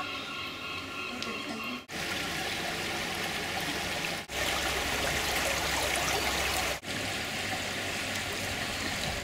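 Shallow stream running over a stony bed: a steady rushing of water that changes level abruptly a few times and is loudest in the middle. In the first two seconds a steadier sound with several held pitched tones comes before it.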